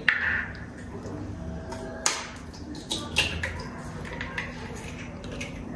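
A few sharp taps and clicks of a knife and small kitchen items handled at a counter, the sharpest near the start and about two seconds in, over a low room hum.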